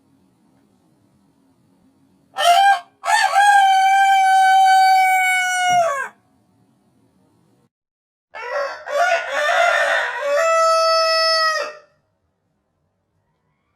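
Rooster crowing twice. The first crow comes about two seconds in: a short note, then a long held note that drops in pitch as it ends. The second crow starts around eight seconds in, rough and hoarse at first before settling into a held note.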